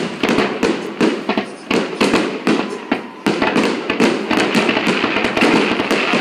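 Aerial fireworks shells bursting in quick succession: sharp bangs several times a second over a dense crackle that thickens about midway through.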